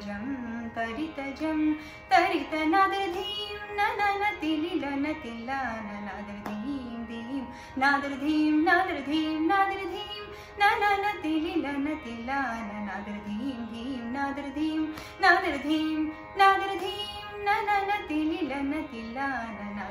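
A woman singing a Carnatic tillana in raga Brindavani, her melody bending and sliding in pitch over a steady drone.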